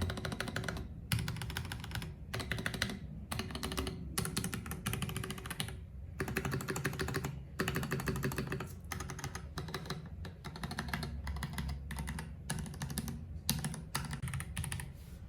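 Keycool KC84 Pro hot-swap mechanical keyboard with dye-sub keycaps, typed on fast. Dense runs of key clacks are broken by short pauses every second or so.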